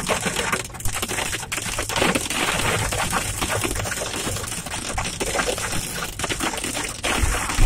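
Hail striking a car's roof and windshield, heard from inside the car: a dense, continuous clatter of hard ticks.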